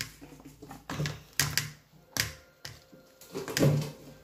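Handling noise: a string of light clicks and knocks, roughly one every half second to second, as a phone is moved about and a plastic toothpaste tube is handled at a washbasin.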